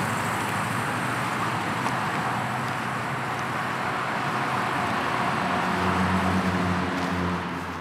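Steady vehicle and road noise, with a low engine hum that swells about five and a half seconds in, then fades out near the end.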